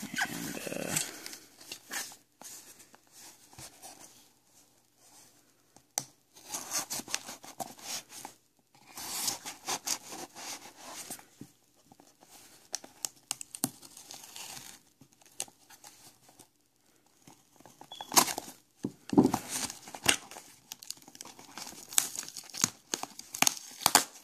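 Cardboard shipping box being torn open by hand: cardboard and packing tape ripping and scraping in several spells, with crinkling, the loudest near the end.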